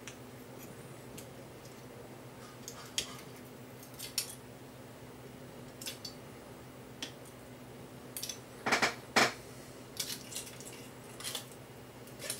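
Scattered small clicks and crinkles from tweezers and crumpled aluminium foil being handled on a circuit board, with a louder pair of clatters about nine seconds in.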